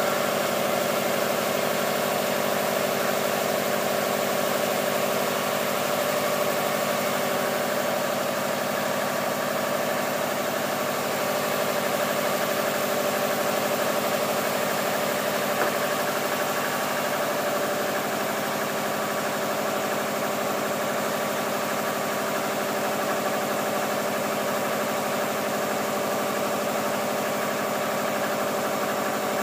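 2002 Subaru WRX's turbocharged 2.0-litre flat-four idling steadily, warming up to operating temperature after a cam seal replacement.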